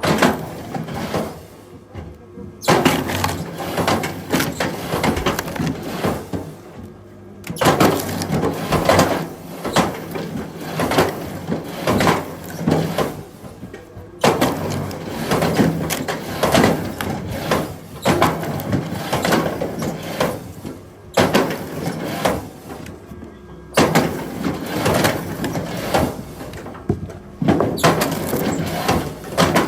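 Firewood being worked: a dense clatter of wooden knocks and cracks in stretches of several seconds, with short pauses between them.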